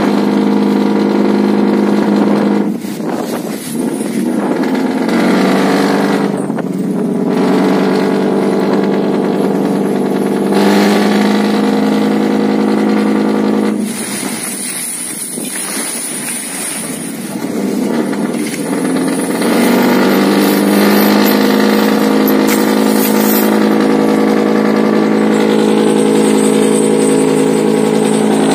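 Fishing trawler's engine running steadily under way, a deep even drone, with water rushing along the hull. The sound dips in loudness a couple of times.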